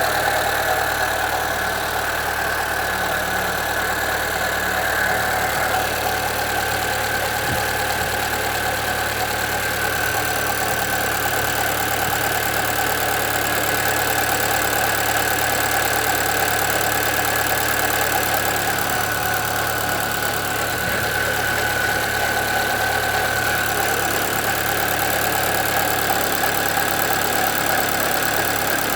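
Chevrolet Celta 1.0 VHCE engine running steadily at idle, with a steady whine from the front of the engine around the belts. A new timing belt has not cured it; the owner found slight play in the water pump and thinks it is probably the pump.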